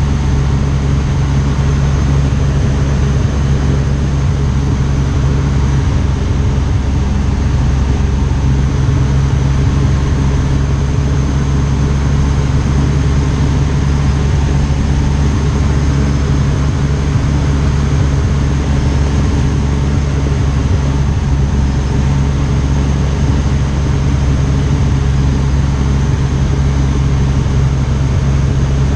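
Piper Pawnee tow plane's piston engine and propeller droning steadily, heard from inside the cockpit with a rush of air noise over it.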